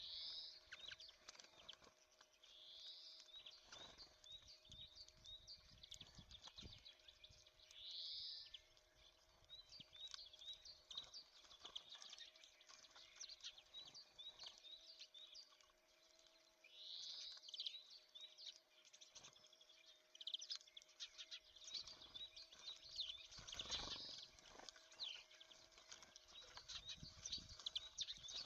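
Small songbirds calling at a feeder: a short call every few seconds among many quick, high chirps, with scattered light clicks and a faint steady hum.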